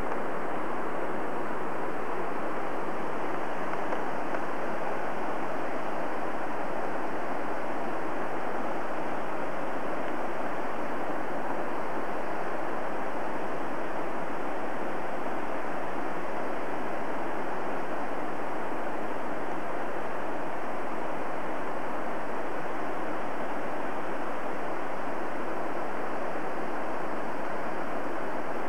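Mountain stream rushing over rocks: a steady, unbroken hiss of running water.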